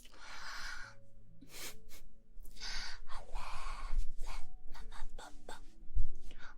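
Close-miked ASMR sounds: breathy exhales swelling and fading a few times, with soft clicks and taps scattered between them and one louder tap near the end.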